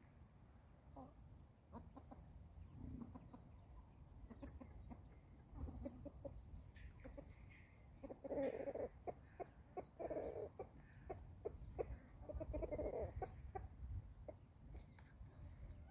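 Hens clucking softly, with three louder clucking bouts around the middle and toward the end, and scattered short clicks in between.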